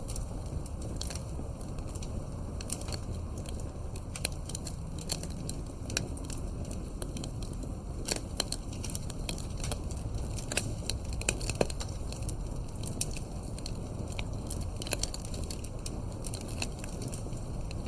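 Wood campfire crackling: irregular sharp snaps, some louder than others, over a low steady rumble.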